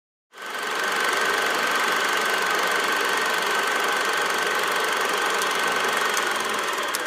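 A steady mechanical running noise with a high, even hum through it, starting abruptly and holding level, with a few faint clicks near the end.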